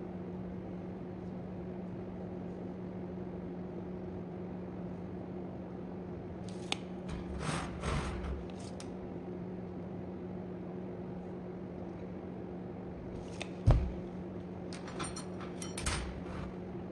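Metal parts being handled: scattered scrapes and ringing clinks, the loudest a single sharp knock about two-thirds of the way in, over a steady hum.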